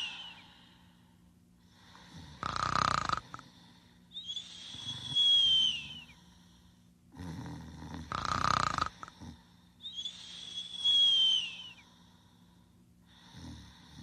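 Snoring in a slow repeating cycle: a rasping, noisy breath alternating with a high whistling breath that falls in pitch, each pair about five and a half seconds apart, with a fainter breath near the end.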